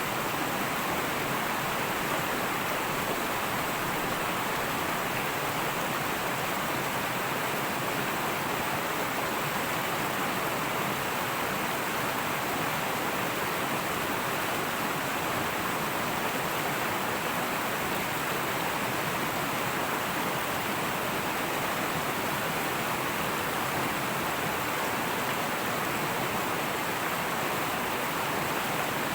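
Fast-flowing river rushing and babbling over rocks, a steady, unbroken water noise.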